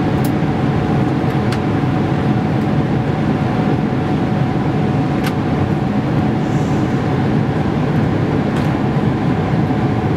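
Boeing 777-300ER cabin noise in flight: a steady, loud roar of airflow and engines, with a faint steady tone above it. A few faint clicks.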